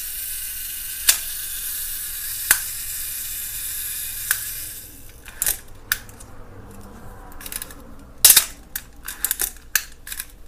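Olympus OM-1's cloth focal-plane shutter and wind lever worked again and again with the camera back open, a test that the overhauled shutter is working properly. Sharp mechanical clicks come a second or two apart over a steady hiss at first, then the hiss stops about halfway and the clicks come quicker, in a dense run near the end.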